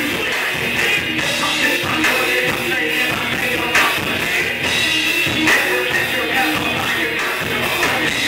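Live rock band playing loudly: electric guitar and drum kit, with a singer on the microphone.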